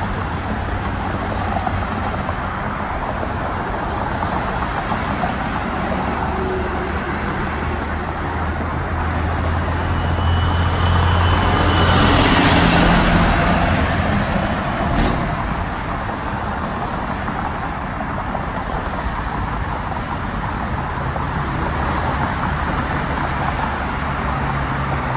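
Road traffic on a multi-lane street: steady tyre and engine noise of passing cars. Around the middle one vehicle passes close and louder, followed shortly by a short click.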